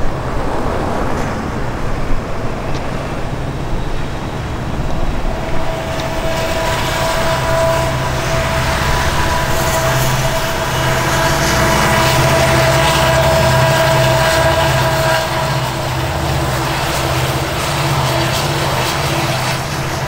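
A large vehicle engine running close by: a low hum with a steady whine over it, which comes in about five seconds in, swells, and fades about fifteen seconds in.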